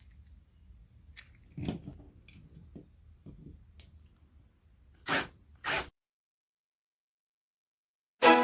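Faint handling clicks and rustles, then two short, loud hissing bursts about half a second apart, after which the sound cuts out completely.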